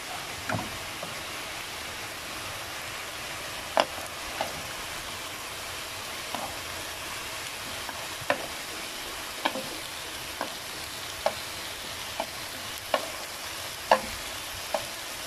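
Vegetables sizzling steadily in a hot wok as they are stir-fried with chopsticks. About a dozen sharp taps of the chopsticks against the wok come at irregular intervals.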